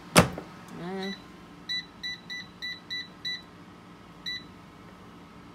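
Power XL air fryer oven: a sharp clack of the door shutting, then its control panel beeping seven short times as the cook time and temperature are keyed in.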